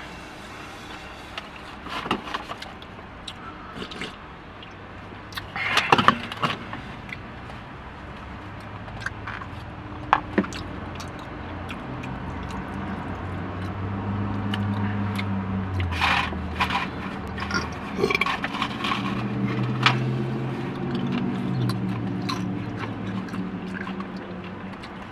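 Eating sounds from a takeout burrito bowl: a utensil scraping and clicking against the bowl, with chewing, in scattered bursts. A steady low hum rises from about halfway through.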